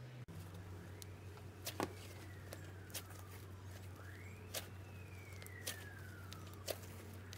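Black butter slime being pressed and pulled by hand, giving scattered soft clicks and pops. Behind it a faint emergency-vehicle siren wails, rising quickly and falling slowly about every three seconds, over a steady low hum.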